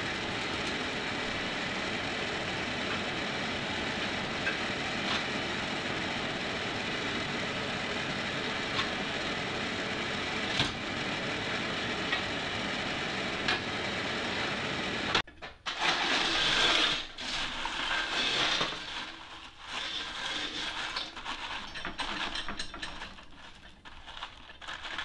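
Electric forge blower made from a car heater fan running steadily with an even rush of air. About fifteen seconds in it cuts off suddenly, followed by irregular clattering of lumps of coal being shifted by hand in the forge's fire pot.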